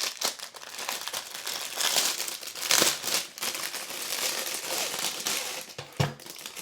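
Packaging being opened by hand: continuous crinkling and rustling, loudest about three seconds in, with a short knock near the end.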